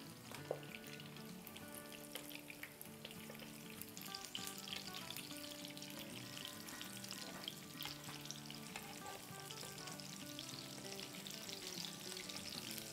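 Chicken chapli kababs shallow-frying in oil in a pan: a faint, steady sizzle and crackle of the oil. Soft background music plays underneath.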